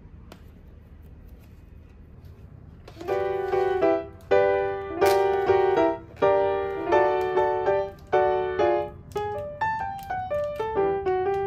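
Background piano music: soft chords struck one after another, coming in about three seconds in after a faint steady hiss.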